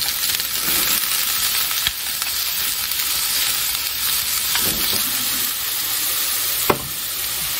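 Chicken breast and cabbage sizzling in a frying pan as they are stir-fried with chopsticks, a steady hiss. Twice, about two seconds in and near the end, there is a sharp click of the chopsticks against the pan.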